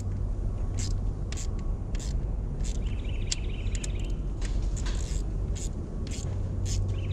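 Hand wrench tightening the valve cover bolts on a 1990 Honda Civic engine: scattered sharp clicks and two short spells of quick fine clicking, about three seconds in and near the end, over a steady low hum.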